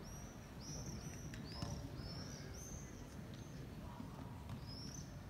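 Common swifts (Apus apus) flying in a flock overhead, giving many short, high-pitched screaming calls that fall in pitch, one after another. There is a lull about three seconds in, and more calls come near the end. A low rumble of background noise lies underneath.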